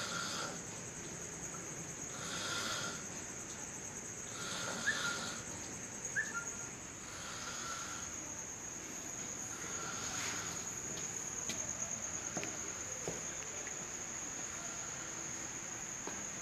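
Crickets chirring in one steady, high trill through the night air, with a few soft swells of noise recurring about every two and a half seconds in the first ten seconds and a couple of brief chirps.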